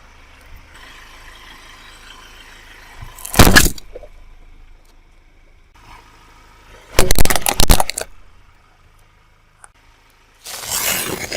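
A car tyre running over and crushing objects: three loud, sudden crushing bursts, the first about three and a half seconds in, a longer one of about a second around seven seconds in, and another near the end.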